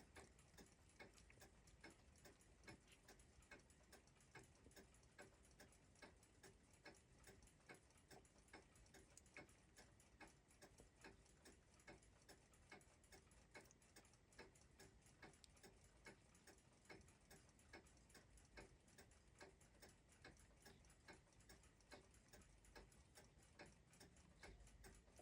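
Faint, steady ticking of a clock, about two ticks a second.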